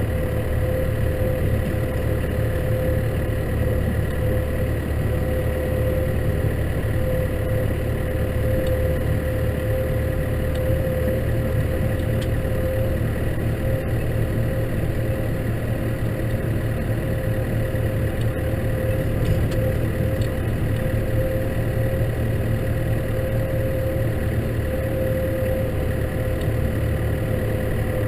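Case tractor engine running steadily under the driver, with a constant whine held on one pitch over the engine note.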